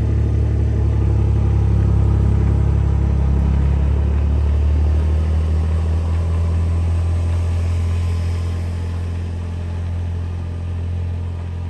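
An engine running steadily with a low, even rumble, easing slightly near the end.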